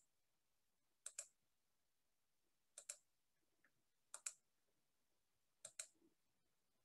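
Computer mouse clicking: sharp double clicks about every one and a half seconds, with near silence between them.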